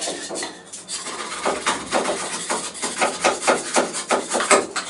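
Folding knife blade shaving and scraping a small wooden block in quick repeated strokes, about five a second from around a second and a half in, with a few single scrapes before that.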